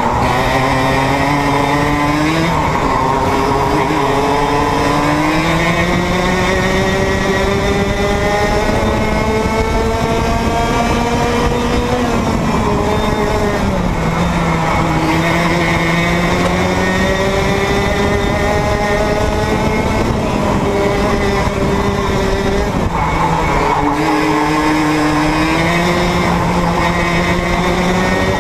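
Two-stroke 100cc racing kart engine heard on board at racing speed, its pitch climbing steadily along the straights and dropping sharply twice as the driver lifts off for corners.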